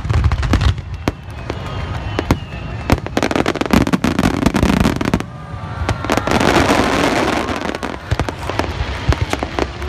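Aerial fireworks shells bursting in rapid succession, with many sharp bangs and pops. A dense crackle of glittering stars builds to its thickest about six to eight seconds in.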